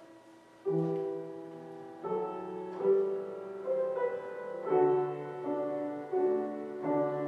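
Piano playing slow, held chords, starting about a second in, as quiet music under a spoken prayer.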